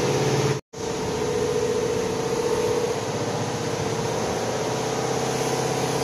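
Fishing boat's engine running steadily, a constant hum over the rush of wake and wind. The sound drops out completely for a moment a little over half a second in, then resumes unchanged.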